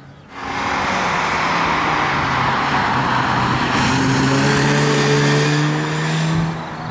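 Naturally aspirated Mazda 13B two-rotor Wankel engine of a 1986 RX-7 FC running at high revs as the car races past, starting abruptly about a third of a second in. The engine note rises about halfway through as it accelerates, then the level drops shortly before the end.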